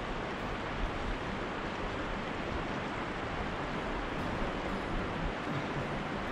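Fast-flowing river water rushing steadily past, a constant even wash of noise.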